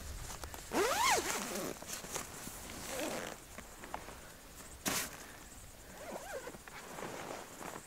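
Rustling of the tarp and sleeping gear as someone shifts and settles in under a tarp shelter, with a few short squeaky rising-and-falling whines and one sharp click about five seconds in.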